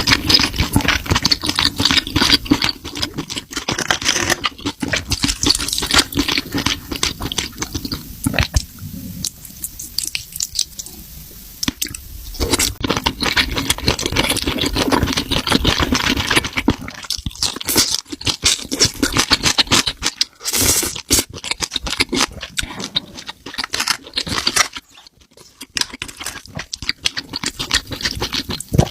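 A person chewing and crunching food close to the microphone, with dense wet clicks and crackles; it eases off for a few seconds about a third of the way in, then picks up again.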